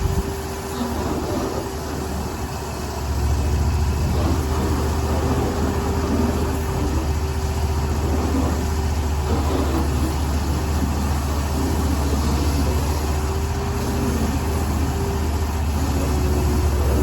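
An engine running steadily, growing louder about three seconds in and then holding at that level.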